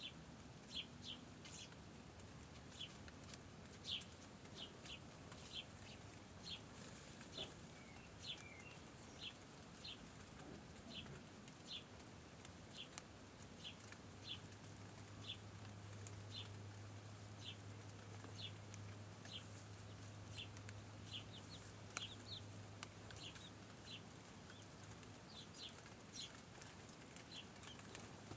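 Chicks peeping: short, high, faint peeps about once a second, some in quick pairs. A low steady hum sounds under them for several seconds in the middle.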